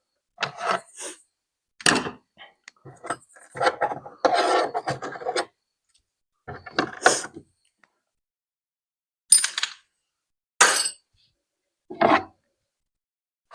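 Intermittent handling noises: short clinks, knocks and rubbing of small hard objects being moved and set down, in irregular bursts with silent gaps between them.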